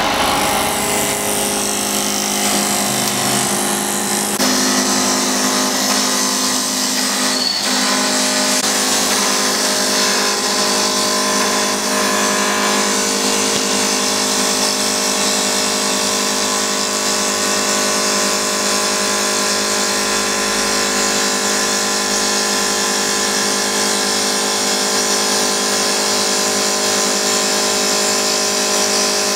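CNC wood lathe turning a wooden blank into a stair baluster: a steady motor whine with the hiss of the cutter peeling off wood shavings.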